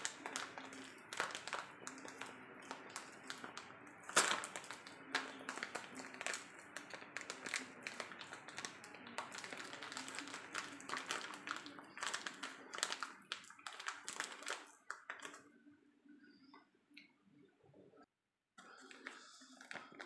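Foil sachet of powdered goat's milk crinkling and crackling as hands handle and open it, a dense run of sharp crackles that thins out and goes quieter after about fifteen seconds, with a brief dropout near the end.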